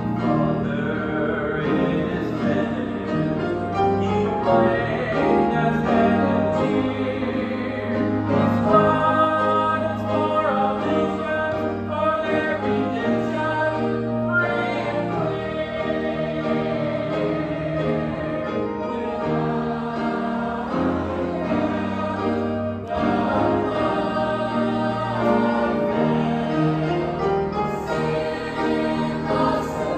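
Mixed church choir of men and women singing together, with many voices holding sustained notes.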